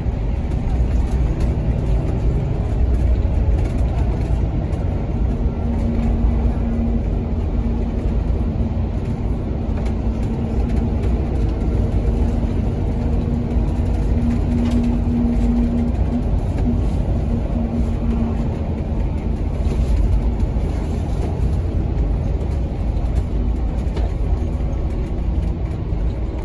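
Scania K280CB Fencer bus, with a Scania DC07 (Cummins 6.7-litre) engine and ZF Ecolife gearbox, running, heard from inside the passenger cabin as a steady low rumble. A steady hum comes in about six seconds in and fades out a few seconds before the end.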